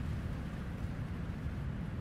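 Steady wind blowing across coastal sand dunes, buffeting the microphone with a low rumble, over the faint hiss of distant surf.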